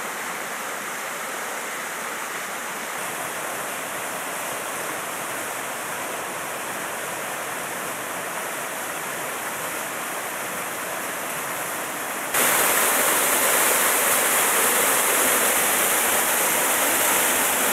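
Mountain stream rushing steadily over rocks. About twelve seconds in, the sound switches suddenly to the louder, hissier rush of a small waterfall close by.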